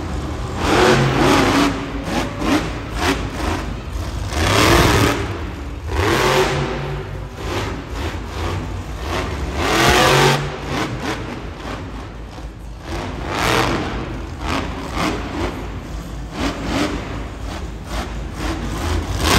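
Monster truck engine revving hard in repeated surges every few seconds as the truck drives and turns, the pitch climbing and dropping with each rev; the biggest surges come about 5 and 10 seconds in.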